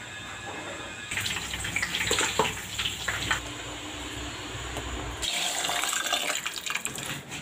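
Liquids being poured and splashed into cooking pots, with stirring, in short kitchen clips whose sound changes abruptly about a second in, again around three and a half seconds and around five seconds.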